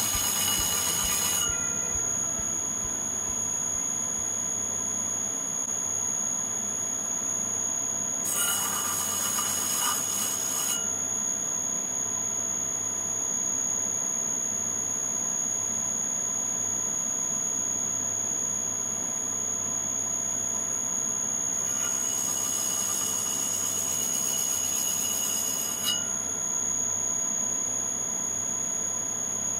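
VFD-driven disc sander motor running with a steady high-pitched whine. Three spells of hiss rise over it, one at the start, one about eight seconds in and one about twenty-two seconds in, each lasting a few seconds.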